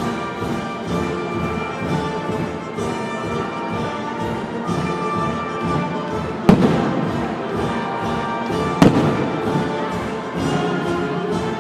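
Orchestral music with a steady pulse, broken by two sharp, loud firework bangs, the first about six and a half seconds in and the second about two seconds later.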